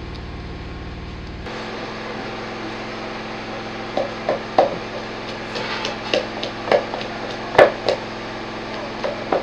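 Wooden pestle pounding mbika (squash seeds) in a wooden mortar: a run of about a dozen short, dull thuds at an uneven pace, starting about four seconds in.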